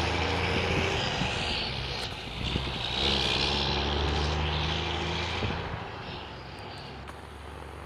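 Heavy diesel engine running with a low, even note. It dips briefly about two seconds in, picks up again a second later, then fades off near the end.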